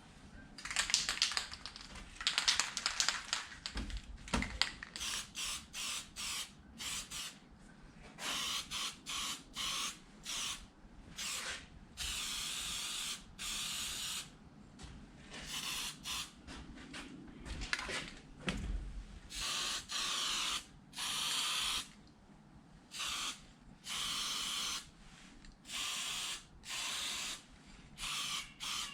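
Aerosol can of epoxy enamel paint spraying in a series of hissing bursts, some short and some lasting a second or two, with pauses between them as the paint is put on in passes. A couple of dull knocks of the can or part being handled come between the bursts.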